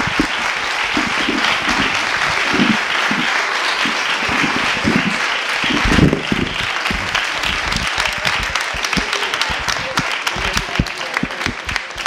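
Theatre audience applauding, with some voices heard over the clapping. Near the end the applause thins into more separate claps.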